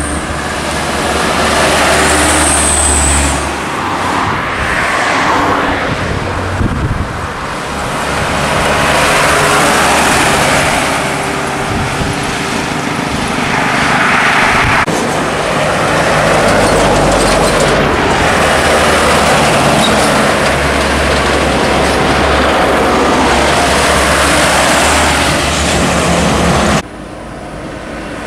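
Light diesel trucks, Mitsubishi Fuso Canters among them, and other traffic passing on a highway. Engine and tyre noise swells and fades as each vehicle goes by, and the sound drops suddenly near the end.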